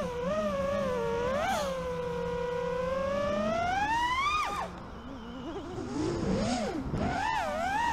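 FPV freestyle quadcopter's brushless motors and propellers whining, the pitch climbing steadily with throttle for about two seconds, then cutting off sharply about halfway through. The pitch wavers low and quieter for a couple of seconds before the throttle punches it back up near the end.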